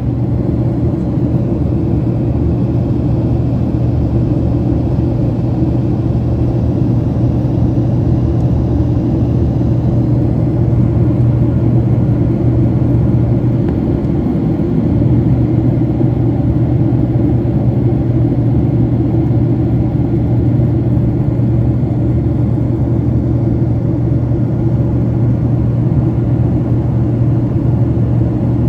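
Steady, loud low rumble with a constant deep hum: engine and air noise heard inside a moving vehicle.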